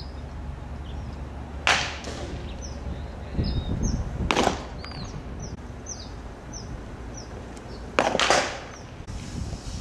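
Baseballs popping sharply into a catcher's leather mitt, three times: about a second and a half in, near the middle, and a double pop near the end. Birds chirp in short repeated calls between the pops.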